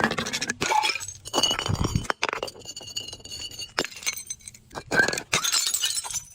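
Glass being broken and crushed: a series of crunching impacts, each followed by glass shards clinking and ringing.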